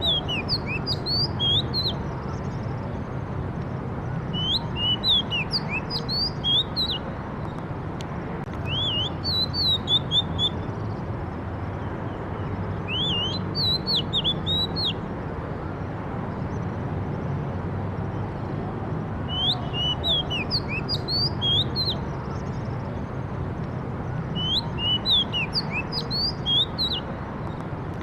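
A songbird singing short phrases of quick, slurred whistled notes, a phrase every four to five seconds, over a steady low background rumble.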